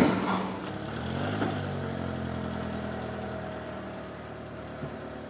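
Kei van engine running as the van drives off, its pitch rising about a second in and then holding a steady hum that slowly fades. There is a short loud knock at the very start.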